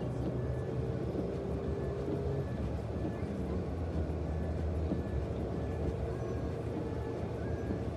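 Steady tyre and engine noise inside a car's cabin while driving on an open road.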